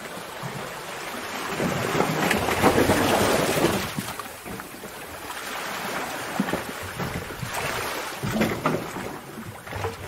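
Sea waves crashing against rocks in a cave: a large surge of surf swells to a peak about three seconds in and drains away, followed by smaller surges with sharp splashes near the end.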